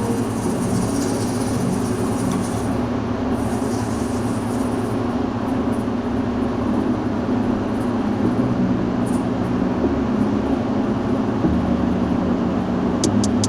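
Metal lathe running with a steady motor hum and rumble.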